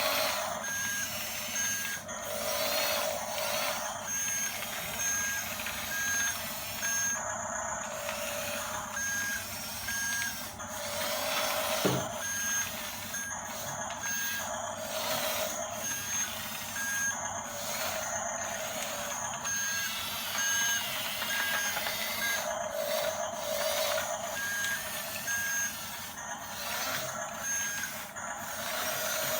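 Radio-controlled toy bulldozer running. Its electric drive whines steadily, and an electronic reversing-style beep sounds on and off every second or two. There is a single sharp click about twelve seconds in.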